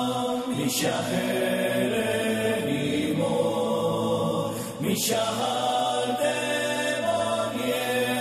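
Music: voices chanting together in long held notes, like a choir, the notes shifting a couple of times.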